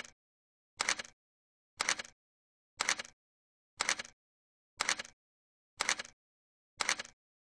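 A short, noisy hit repeating evenly about once a second, eight times, with dead silence between the hits.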